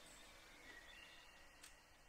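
Near silence: faint room tone.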